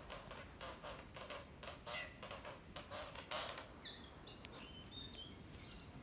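A bird calling: a quick run of short scratchy notes, then a few brief high whistled chirps from about four seconds in.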